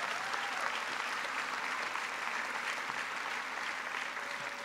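Audience applauding, a steady dense clapping that begins to ease near the end.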